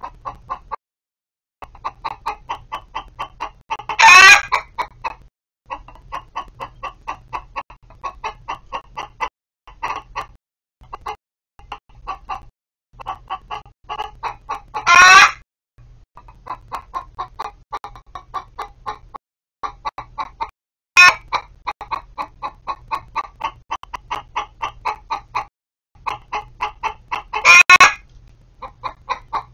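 Backyard laying hens clucking in rapid runs of about five clucks a second. A loud, drawn-out squawk rises above the clucking four times, every six seconds or so.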